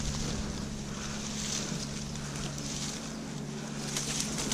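Steady hum of a swarm of wild honey bees stirred up by smoke at their nest, over an even hiss, with a brief rustle of leaves and branches near the end.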